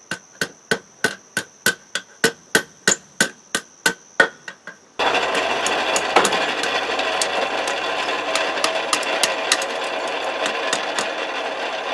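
Small ball-peen hammer tapping steel at about four light strikes a second, peening a texture into the surface. About five seconds in, a loud steady machine noise with a low hum starts and holds, with lighter taps still heard over it.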